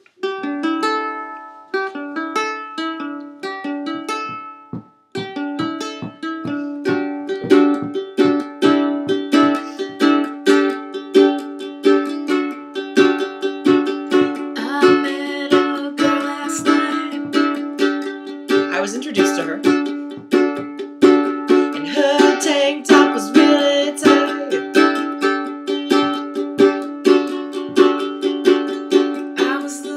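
Ukulele playing: a few single notes plucked, a short break about five seconds in, then steady rhythmic strumming of chords.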